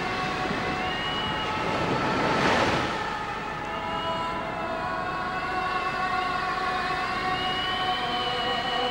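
Storm-at-sea sound effect: wind howling with wavering whistling tones over a steady rush of surf, and a wave crashing about two and a half seconds in.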